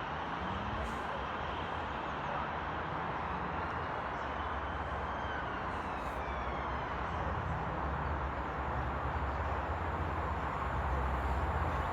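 Railway station ambience: a steady low engine rumble under an even hiss, growing a little louder near the end.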